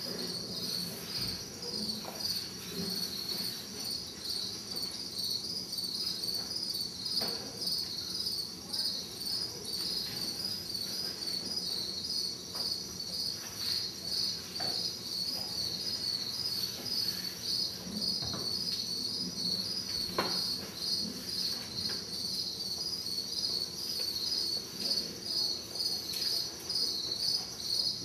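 Crickets chirping in a steady, even pulse, with a few faint knocks now and then.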